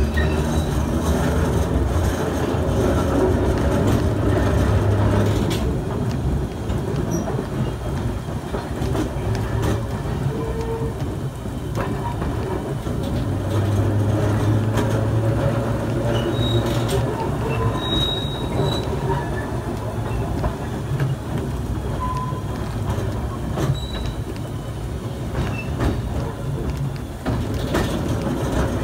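Brooklyn Rapid Transit open streetcar 4573 running along the track, heard from on board: a steady rumble of wheels on rail with scattered clicks, and a low motor hum that swells a few seconds in and again about halfway through.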